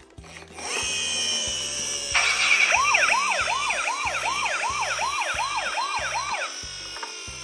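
Toy ambulance's electronic siren sounding a fast rising-and-falling yelp, about three cycles a second, starting about two seconds in and stopping near the end. A steady high tone runs underneath it.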